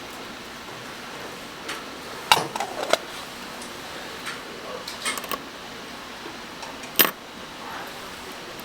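Short, light clicks and clinks of small metal tools and parts at a watchmaker's bench: a few between two and three seconds in, a small cluster around five seconds, and a sharper single click about seven seconds in. Under them runs a steady fan-like hiss.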